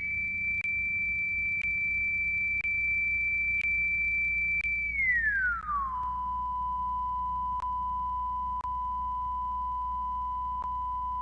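Frequency test-tone recording played on a variable-speed turntable: a pure, steady high tone that glides smoothly down about five seconds in and settles on a lower steady tone. Faint short clicks come about once a second.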